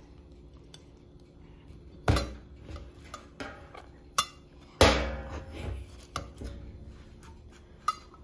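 Dishware clattering on stainless steel as a white ceramic plate is laid over a steamed foil bowl of rice in a steel bowl: a knock about two seconds in, a sharp click near four seconds, then the loudest clunk with a ringing tail just before five seconds, followed by a few lighter taps.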